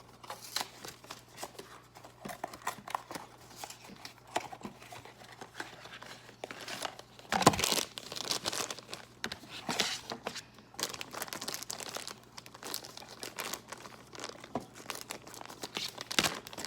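Packaging of a Funko Mystery Minis blind box crinkling and tearing as it is opened by hand, with irregular crackles and a louder rip about halfway through.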